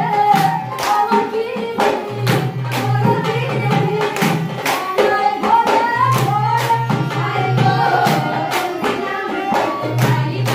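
Women singing a Sylheti dhamail folk song together, with rhythmic hand clapping at about two claps a second.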